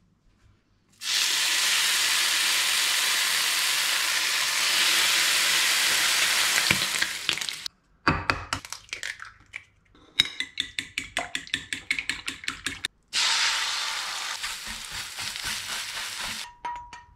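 Food sizzling in a non-stick frying pan, then a few cracks and clicks as an egg is broken, a fork beating eggs in quick, even taps, and the eggs sizzling in the pan as a fork stirs and scrambles them.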